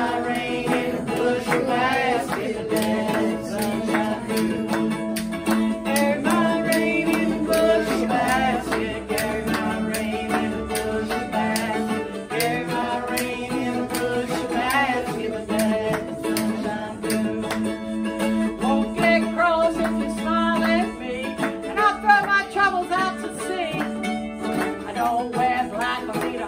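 A woman singing a song to two small strummed stringed instruments, a ukulele among them.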